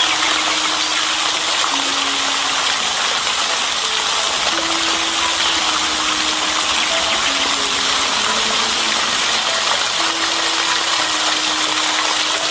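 Pond fountain spray falling back onto the water surface, a steady even splashing hiss. A slow, soft melody of held low notes plays quietly underneath.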